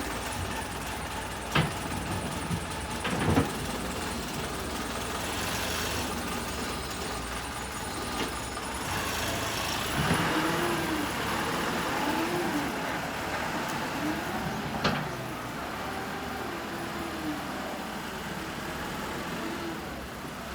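Wheel loader engine running steadily, its pitch rising and falling again and again through the middle, with a few sharp knocks.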